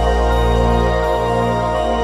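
Background music: a slow piece of steady, long-held tones over a low drone.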